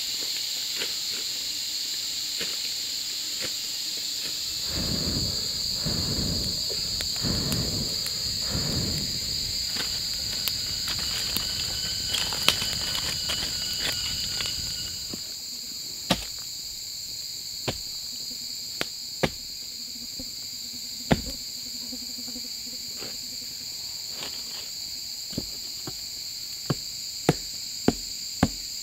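A steady, high-pitched insect chorus. Low rustling and handling noise comes in the first half. Later there are sharp knocks of wood being chopped, a few seconds apart at first and coming faster near the end.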